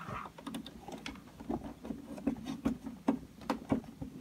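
Fingers threading a coaxial cable connector onto a TV's antenna input, making a run of small, irregular clicks and scrapes of metal and plastic.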